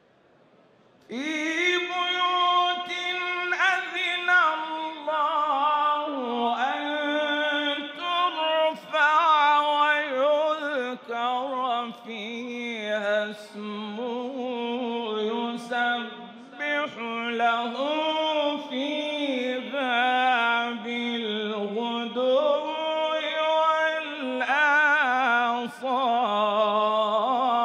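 A man reciting the Quran in the melodic, drawn-out chanting style. It is one long phrase of held, ornamented notes whose pitch slides up and down, with a wavering vibrato near the end, starting about a second in.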